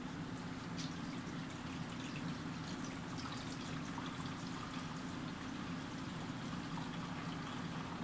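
Water pouring from a stainless-steel jug into a refrigerator door's water-dispenser tank, a faint steady trickle with a few small drips, over a steady low hum.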